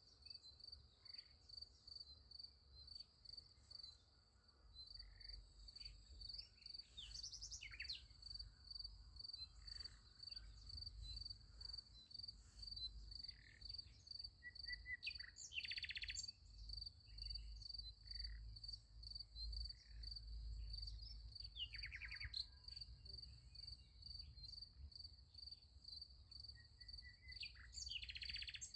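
Crickets chirping in a steady, even pulse, with scattered bird chirps and short trills over them.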